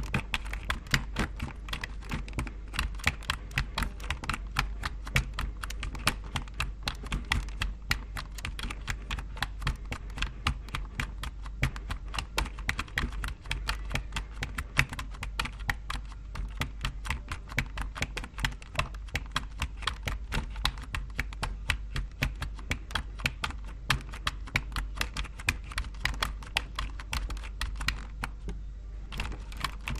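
Computer keyboard typing: a quick, uneven run of key clicks, several a second, with brief pauses, over a steady low hum.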